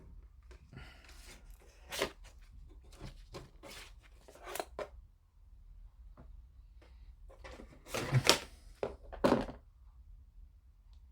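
Small plastic model-kit parts and tools being handled on a work surface: scattered light clicks and knocks, with the loudest knocks about eight seconds in and again about a second later.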